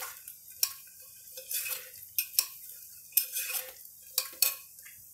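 Plastic spatula stirring sliced onions and whole spices frying in oil in a pressure cooker, a scrape about once a second with sharp clacks against the pot.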